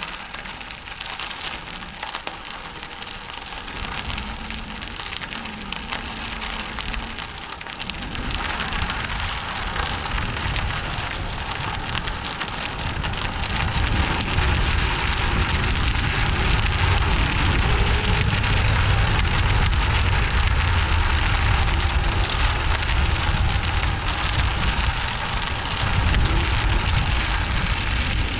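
Bicycle tyres crackling and crunching over a gravel path, with wind rumbling on the microphone. The noise grows louder about eight seconds in and again about halfway through.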